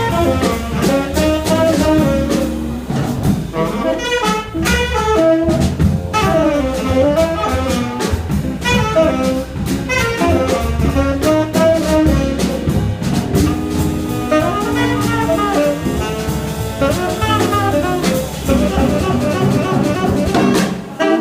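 Jazz quintet playing live: a saxophone plays a fast, running melodic line over drum kit and low bass notes.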